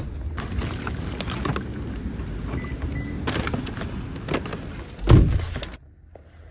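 Rustling and clicking of a takeout bag and food containers being handled, with a heavy thump about five seconds in; the noise cuts off suddenly soon after.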